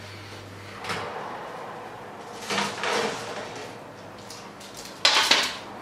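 Oven door being opened and a metal baking tray of biscuits pulled off the oven rack, a few scrapes and knocks with a louder clatter near the end.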